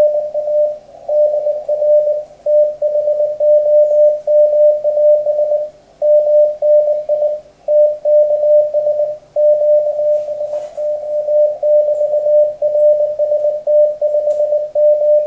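Morse code (CW) received on the 40 m amateur band and heard through the radio: a single steady tone near 600 Hz keyed in quick dots and dashes over faint band hiss. It is the other station sending its reply, including its signal report.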